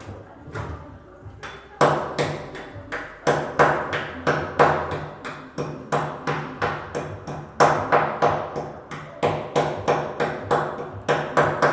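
Rapid hammer blows, about three a second and uneven in strength, each with a short metallic ring, as work is done on a wall opening to fit an exhaust fan.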